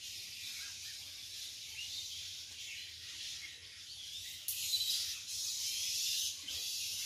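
Steady high-pitched insect buzz, growing louder about halfway through, with a few faint bird chirps.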